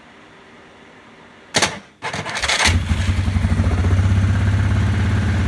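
2001 Yamaha Grizzly 600's single-cylinder four-stroke engine being electric-started: about a second and a half in the starter engages with a loud clunk, the engine turns over briefly, catches, and settles into a steady idle. The clunk on starting persists with a new starter fitted; the owner suspects the starter's Bendix gear or the flywheel.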